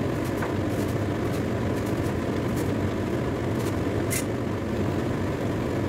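Steady low rumble of a gas stove burner under a pan of papaya atchara cooking in vinegar, with a few faint pops.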